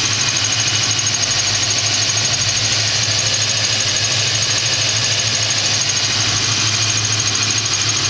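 A 1987 Ford Mustang GT's 5.0-litre V8 idling steadily, with a fast, high-pitched metallic chirping repeating along with it from the rear of the engine. The owner cannot place the chirp and likens it to metal-on-metal contact.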